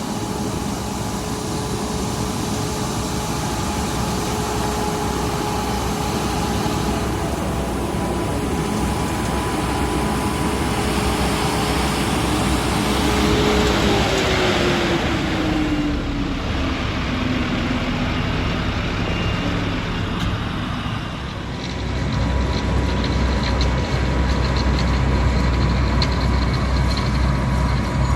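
Heavy diesel road-works machinery running: lorry and plant engines with a steady drone. A tone falls in pitch about halfway through, and a deeper, louder rumble takes over in the last quarter.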